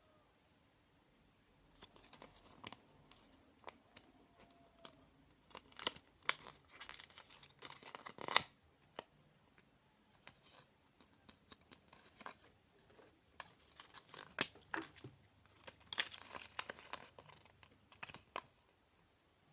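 Packaging being handled and torn open: irregular crinkling and tearing of paper or plastic, in two louder spells partway through and near the end.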